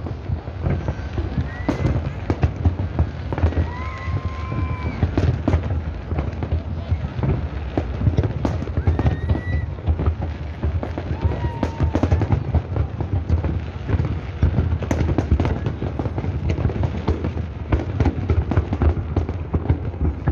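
A large fireworks display with many shells bursting and crackling in rapid, overlapping succession over a continuous low rumble. A crowd's voices rise now and then above the bangs.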